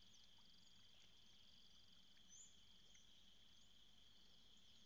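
Near silence: faint steady insect chirring, with a few faint high chirps.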